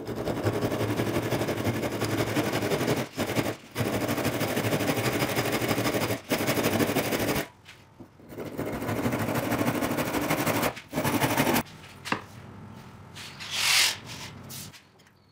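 Hand saw cutting slots into a hardwood block: fast, dense rasping strokes in several runs broken by short pauses, stopping about three-quarters of the way through. A brief loud swish follows near the end.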